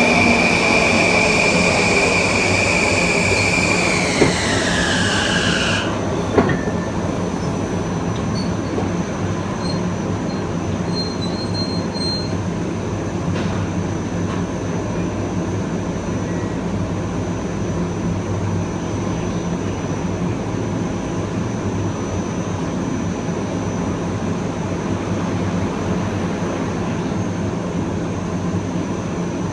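Kawasaki M9 electric multiple unit's Mitsubishi IGBT-VVVF inverter and AC traction motors whining at a steady high pitch, then gliding down and cutting off suddenly about six seconds in. After that only the steady rumble of the wheels on the rails goes on, with a couple of sharp knocks around the cutoff.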